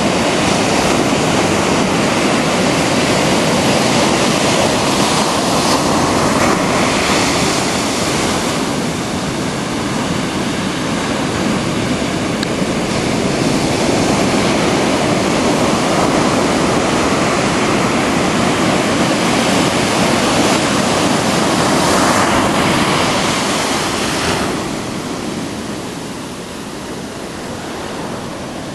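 Ocean surf breaking on rocks and washing up a sandy beach: a continuous rush of waves that swells about seven and twenty-two seconds in and drops lower near the end.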